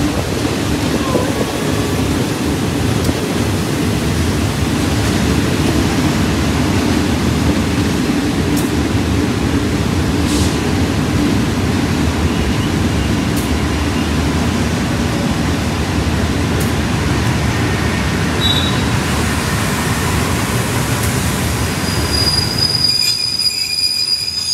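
Passenger train running along the track, a steady loud rumble of wheels and carriages. A high-pitched wheel squeal comes in during the last couple of seconds.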